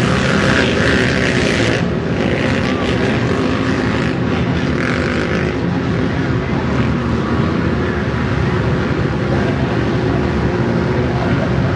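Many ATV engines running together in a loud, steady drone. It surges with revving in the first two seconds and again about five seconds in.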